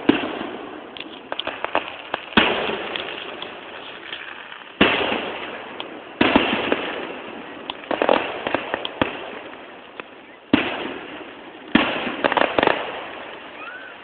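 Fireworks display: aerial shells bang every second or two, each bang trailing off in a long echo, with clusters of crackling pops in between. Heard through a camera phone's microphone, so the sound is thin and lacks its top end.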